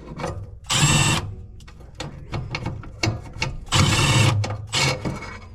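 Cordless drill driving screws into furnace sheet metal: two short runs of about half a second each, with small metallic clicks and clatter between them.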